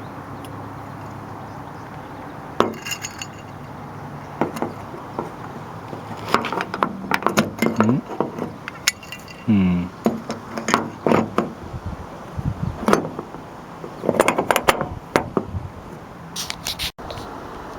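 Irregular metallic clicks, clinks and knocks of a Camaro's outside door handle and lock hardware being fitted and worked in the door shell, with a couple of short grunts partway through.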